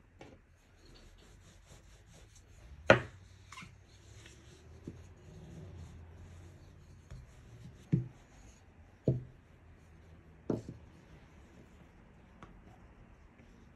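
Wooden rolling pin rolling out bread dough on a silicone baking mat: a soft rubbing, with sharp wooden knocks of the pin against the mat and worktop, the loudest about three seconds in and three more between about eight and ten and a half seconds in.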